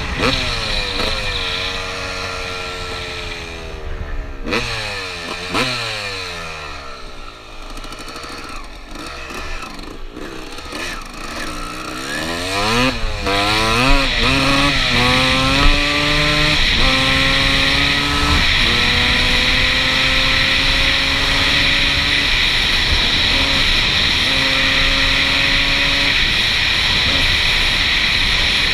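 1996 Suzuki RM250 single-cylinder two-stroke dirt bike engine under way: for the first twelve seconds its revs fall away with a few short blips of throttle. Then it revs up hard and climbs through the gears, the pitch rising and dropping back at each shift before holding high. Wind rushes over the microphone.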